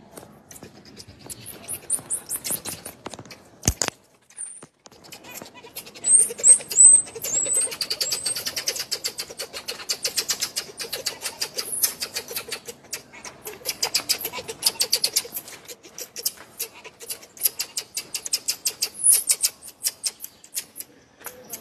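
Marmosets calling: short, high-pitched chirps and twitters over a dense run of rapid sharp clicks.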